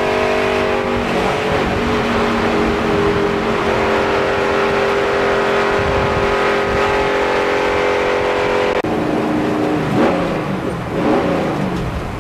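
Racing stock car's V8 engine heard from inside the car, running at high, nearly steady revs, its pitch stepping a little about a second in and again near four seconds. About nine seconds in the sound cuts, and the engine note drops and turns uneven.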